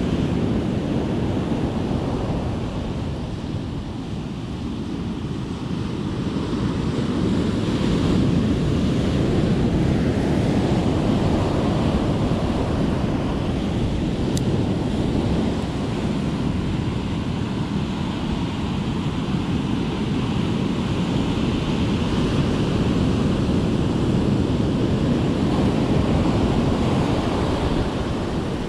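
Ocean surf breaking and washing up the sand, its rush swelling and easing with each wave.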